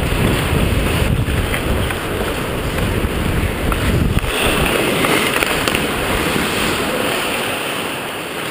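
Wind rumbling on a helmet-mounted action camera's microphone while skating, with the hiss of skate blades on ice growing stronger about halfway through and a couple of light clicks.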